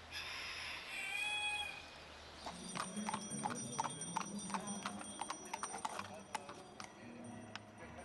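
Carriage horse's hooves clip-clopping on stone paving, starting about two and a half seconds in, an uneven two or three hoofbeats a second.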